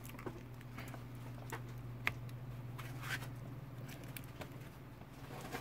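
Scattered light clicks and taps of a black plastic cordless-drill battery case being handled as cylindrical cells are pressed back into it, the sharpest about two seconds in, over a steady low hum.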